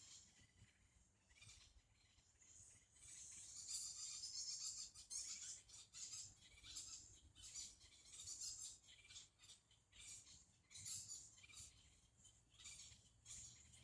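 Faint forest ambience: high-pitched chirring and chirping calls of wild animals, swelling between about three and nine seconds in and trailing off in shorter bouts, over a low steady rumble.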